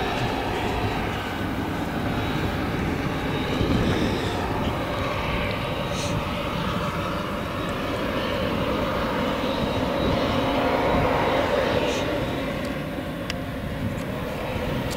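Claas Jaguar 970 self-propelled forage harvester running steadily under load, chopping whole-crop triticale and blowing it into a trailer, with the tractor pulling that trailer running alongside.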